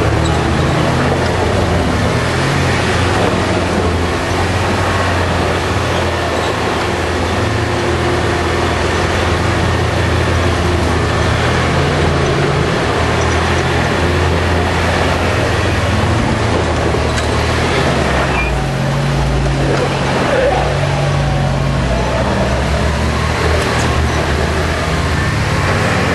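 Off-road 4x4's engine running under changing load on a rough dirt trail, its pitch stepping up and down, over a constant rush of rattling and ground noise, heard from inside the vehicle.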